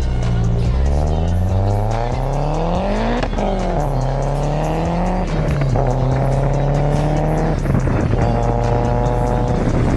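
Car engine accelerating through the gears: its pitch climbs, then drops sharply at three gear changes, about 3, 5.5 and 8 seconds in, and holds nearly steady in the higher gears.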